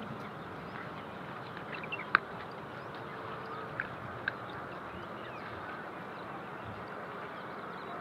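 Steady outdoor background hiss with faint bird calls, and a few sharp clicks, the loudest about two seconds in.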